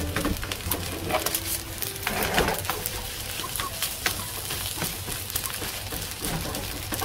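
Plastic spatula scraping and clicking against a nonstick frying pan as fried rice is stirred and turned over, with a frying hiss underneath. The clicks come irregularly, with a louder scrape about two seconds in.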